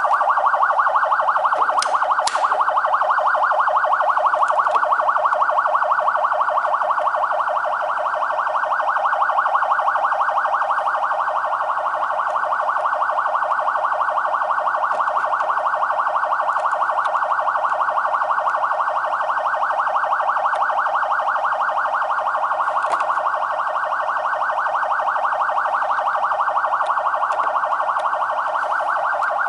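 Electronic police siren sounding a very fast warble, a rapid, even up-and-down wavering tone held steadily without a break.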